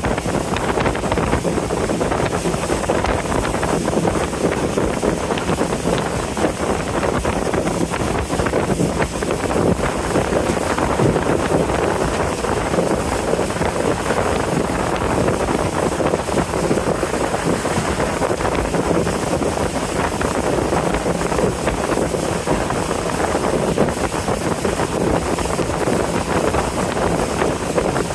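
Riverboat under way on a wide river: a steady rush of wind on the microphone and water moving past the hull, with the boat's engine running underneath.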